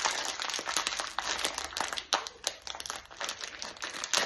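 A crinkly chocolate-snack packet being pulled and torn open by hand, with a dense run of sharp crackles and rustles.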